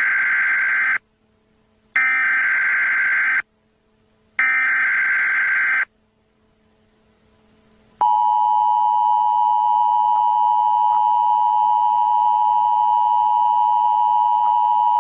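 Emergency Alert System header: the end of the first SAME data burst and two more buzzy data bursts, each about a second and a half long with short silent gaps, then from about eight seconds in the steady two-tone attention signal. They mark the start of a severe thunderstorm warning alert.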